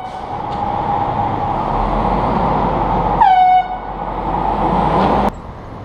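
Handheld canned air horn giving one short blast about three seconds in, its pitch dropping sharply at the onset and then holding steady, over steady street traffic noise that cuts off abruptly near the end.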